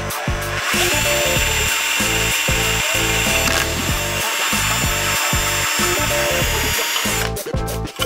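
Power drill running steadily, driving out the screws of a plastic DC isolator switch box. It starts about a second in and stops near the end, over background music with a steady beat.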